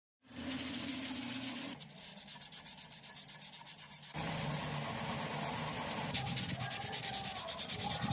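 Hand sanding with rapid back-and-forth strokes, several a second, the sound changing abruptly twice as the work shifts.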